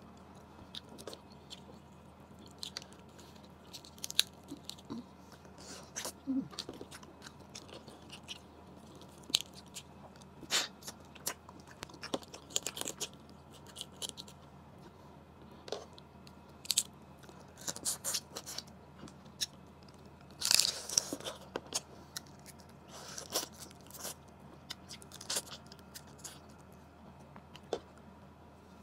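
Cooked blue crab being eaten by hand: the shell cracked and picked apart, with chewing and biting. Irregular sharp crackles and clicks, with a louder cluster about twenty seconds in.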